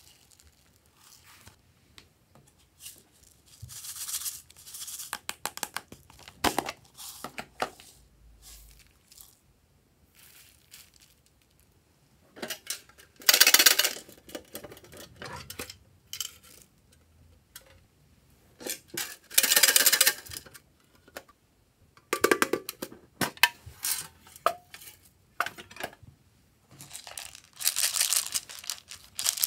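Hands handling toy storage containers, a tin box and a plastic case, and small foam beads rattling and pouring over a slime tray: several short, loud bursts of rattling and scraping a few seconds apart, with small clicks and taps between.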